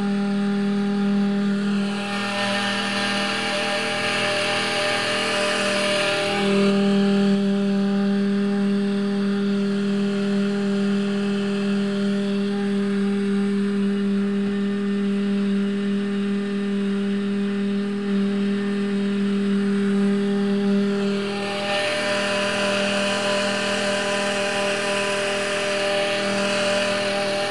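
Electric wood router rigged as a boat outboard motor, running steadily with a high whine and its overtones. A hiss rises over it twice, for a few seconds each time.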